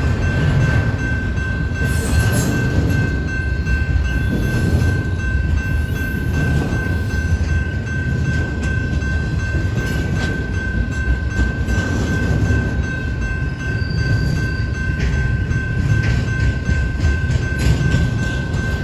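Double-stack intermodal freight train rolling past: a steady low rumble of wheels on rail with many short clicks, thicker near the end, and a steady high-pitched tone throughout.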